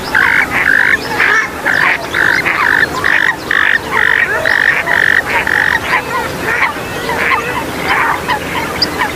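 Waterbirds of the rail family (swamphens and moorhens) calling: a quick run of loud, even nasal notes, about two a second, that fades out after about six seconds, with many short chirping calls underneath.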